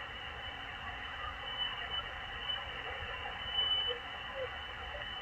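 Shortwave radio static on a single-sideband voice channel: a steady, thin hiss from the Malachite DSP SDR receiver while it waits for a station's reply.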